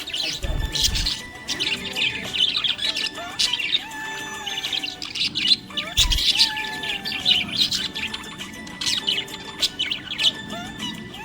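Small pet parrots chirping busily in a rapid, continuous run of high chirps and squawks, over soft background music with held, gliding tones. Two low thumps cut in, one near the start and one about six seconds in.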